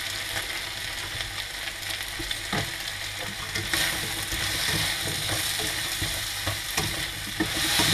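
Pangasius fish pieces and sliced celery sizzling in hot oil in a non-stick frying pan, stirred with a plastic spatula that scrapes and clicks against the pan now and then.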